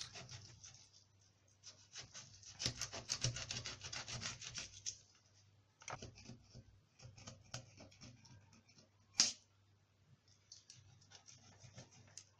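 Kitchen knife cutting the head off a mackerel, rasping and scraping in a run of strokes, then scattered clicks and one sharp click near the end.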